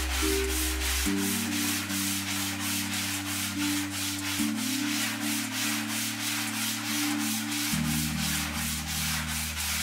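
Hand sanding of a plywood sheet with sandpaper: quick, even back-and-forth rasping strokes. Low held tones that change pitch every few seconds run underneath.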